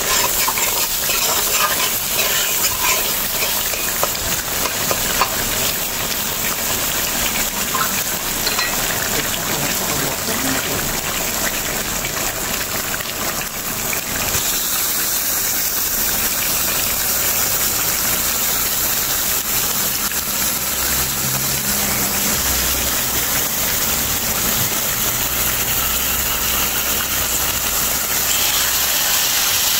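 Curry paste frying in oil in an aluminium pot: a steady sizzle, with the spoon stirring and scraping at first. The water has cooked off and the oil is separating. In the later part, pieces of seasoned meat are added into the pot.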